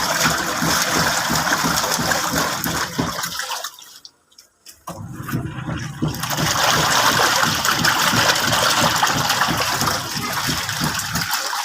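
Water gushing and churning in a washing machine, in two long stretches broken by a brief pause about four seconds in.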